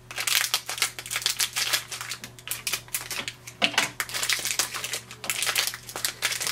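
Plastic blister packaging of an HP 65 black ink cartridge being cut and pulled open by hand, a rapid, irregular run of crisp crackles and crinkles.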